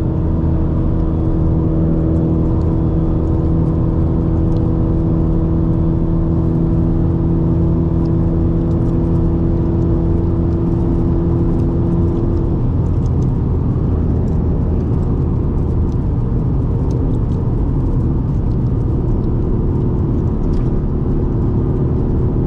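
Inside the cabin of a 2004 Subaru WRX driving at a steady speed: a constant road and engine drone with a steady pitched hum over it. The hum fades about halfway through and comes back near the end.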